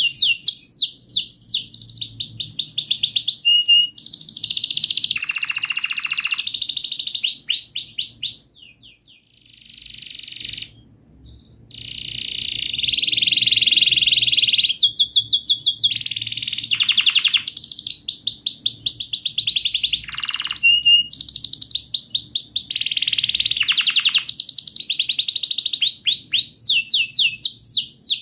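Canary singing a long, continuous song of rapid chirps and rolling trills, with a break of about three seconds a third of the way in.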